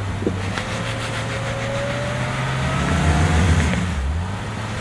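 2013 Range Rover's engine pulling under load as the SUV works through a sandy off-road rut. The revs climb with a faint rising whine, swelling to the loudest point about three seconds in, then easing off.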